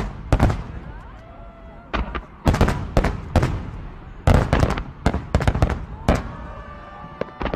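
Aerial shell fireworks bursting: a rapid series of sharp bangs in clusters, about a dozen in all, with short quieter gaps between them.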